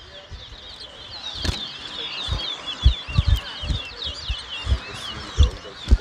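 Caged towa-towa (chestnut-bellied seed finch) singing a fast, unbroken run of high whistled notes, with scattered short low thumps.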